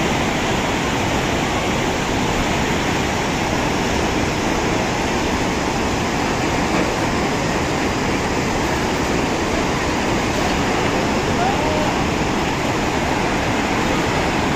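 Steady roar of a muddy flash-flood torrent rushing past after a cloudburst.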